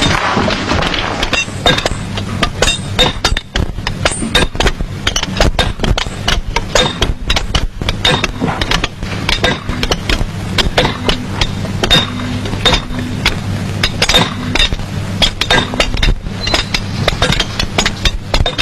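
Hand tools striking rock: many quick, irregular metallic clinks and knocks from stone being quarried by hand, over a steady low hum.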